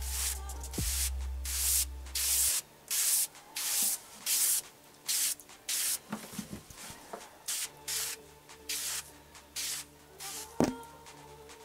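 Insecticide sprayer wand hissing in short bursts, about two a second, as the trigger is pulsed to spray a bed-bug-infested sofa. A single sharp knock comes near the end.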